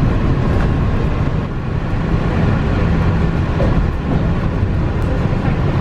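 Walt Disney World monorail running at speed, heard inside the car as a steady low rumble.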